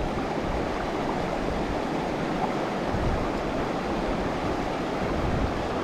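River water running over a shallow stony riffle: a steady, even rushing.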